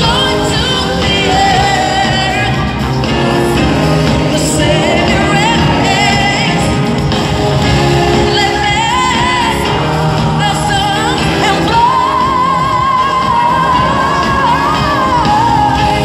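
Female pop singer's live lead vocal over the band through an arena PA, recorded from the audience in a large reverberant hall. She sings runs with vibrato, then holds a long note from about twelve seconds in, with some shouts and whoops from the crowd.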